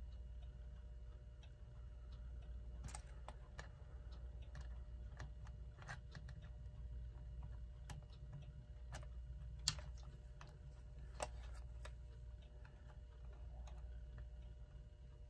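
Small, irregular clicks and light scrapes of a tool prying a clock hand off its shaft, working around it, over a steady low hum. Two clicks about ten and eleven seconds in are louder than the rest.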